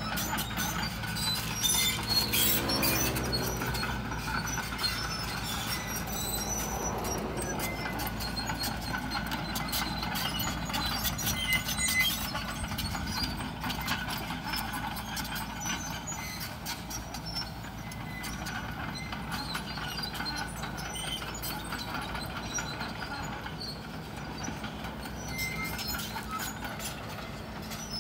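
Sumitomo SH130 hydraulic excavator's diesel engine running steadily under load, its note rising briefly about three seconds in, with clanking and squeaking from its steel tracks and bucket as it travels and scrapes the ground.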